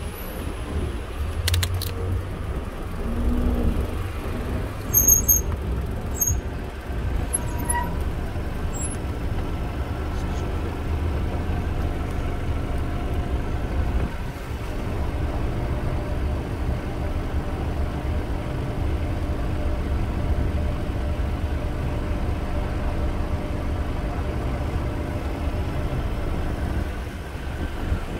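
City traffic in a slow, stopped queue: car engines running and idling close by, with a steady low rumble and a few short clicks about five seconds in.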